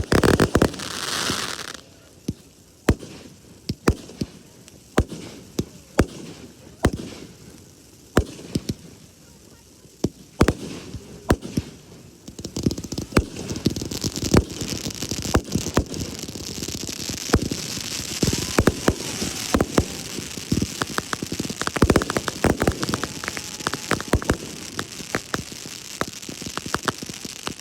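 Fireworks going off: a loud burst at the start, then scattered sharp bangs for about ten seconds, then dense crackling from many small pops from about twelve seconds in.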